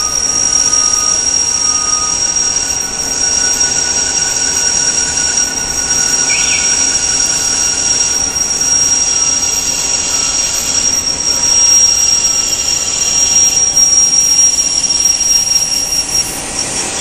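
Bardons & Oliver automatic tube cut-off lathe running through its cut-off and chamfering cycle: a steady machine noise with a high, steady whine that stops shortly before the end.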